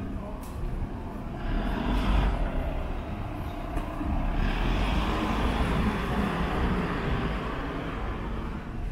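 Street traffic: motor vehicles passing close by with tyre and engine noise. One swells briefly about a second and a half in, and a longer, louder pass starts about four and a half seconds in.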